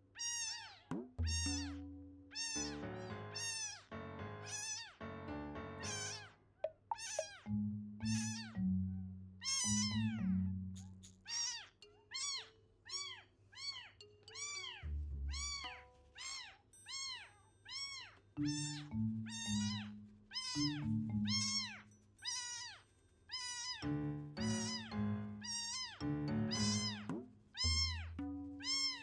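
Newborn kitten mewing over and over, rapid high-pitched cries coming more than once a second.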